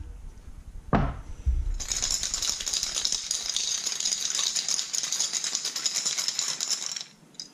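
Small metal parts rattling fast inside a glass jar of soaking liquid as the jar is shaken hard for about five seconds, after a single knock about a second in.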